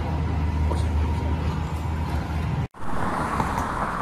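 Low, steady rumble of road traffic. It cuts off abruptly about two and a half seconds in and gives way to a different outdoor ambience with a steady hiss.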